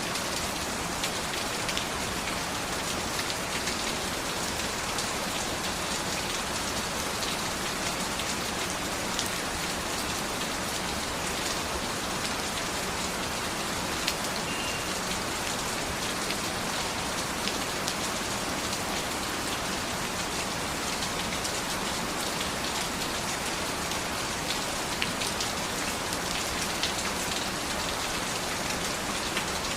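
Steady rain falling, with the patter of many individual drops striking a surface.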